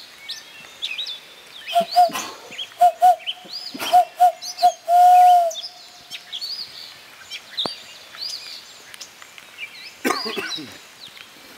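A barred owl call blown through cupped hands: a run of short hoots at one steady pitch, then one longer, louder drawn-out hoot, imitating the owl's 'who cooks for you, who cooks for you-all' call. Songbirds chirp in the background.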